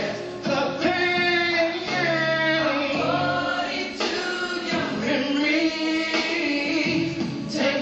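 Music with a group of voices singing together.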